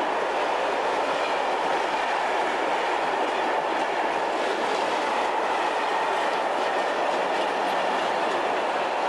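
Freight wagons of a long mixed freight train rolling past close by: steady, unbroken noise of steel wheels running on the rails.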